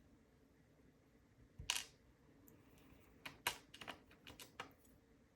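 Small, sharp clicks of loose padlock pins being handled and set down on a hard surface: one click, then a quick run of about six a little later.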